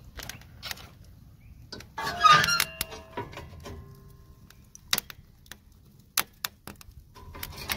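Steel firebox door of a mobile biochar pyrolysis unit being opened, a loud metal clatter and scrape with ringing about two seconds in, then a second ringing metal clank near the end. Scattered sharp crackles from the burning wood fire in between.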